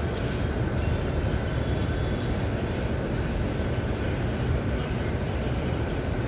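Steady low rumbling noise, unbroken and even in level, with a faint thin hum above it.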